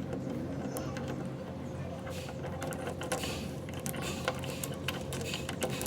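A workshop machine running with a steady hum and a held tone, with scattered light metallic clicks and taps throughout.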